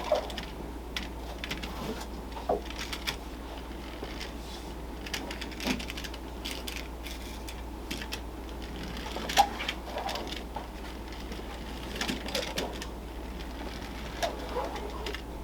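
Scattered small clicks and rattles from a Schuco key-wind tin toy car being wound and handled, with a few brief squeaks, over a steady low hum.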